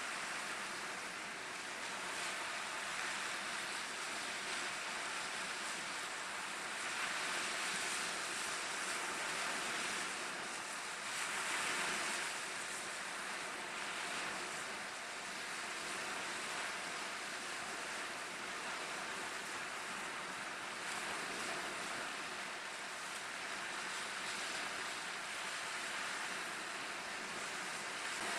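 Small waves breaking against a rock breakwater and washing up a sandy shore: a steady rushing wash that swells a little about eight and twelve seconds in.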